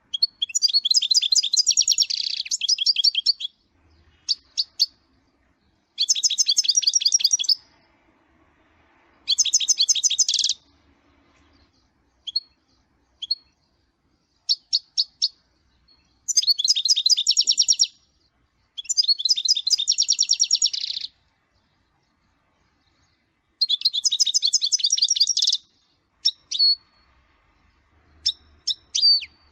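Goldfinch singing: six runs of fast, high twittering, each lasting about two seconds, with single short call notes in the pauses between them.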